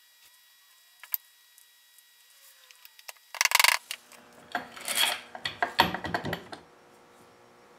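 Iron pipe clamps clanking and rattling as they are handled and fitted across a freshly glued wooden chair frame: a loud burst of clatter about three seconds in, then a run of knocks and rattles over the next few seconds.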